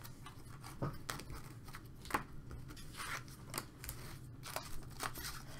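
Trading cards and a foil pack wrapper being handled and set down: scattered light clicks, taps and rustles.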